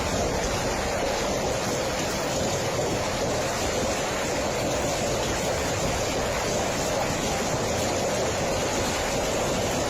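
Steady, unbroken rush of water, cutting in suddenly at the start and holding at an even level throughout.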